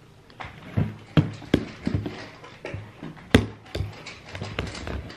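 Handheld can opener clicking and clunking against a can, about a dozen irregular knocks as it is worked without piercing the lid.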